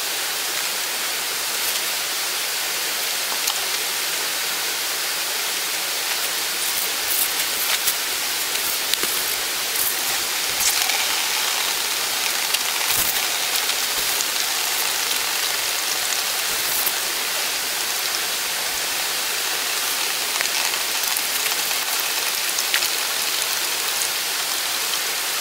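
Steady noise of running or splashing water, with scattered faint ticks and pops.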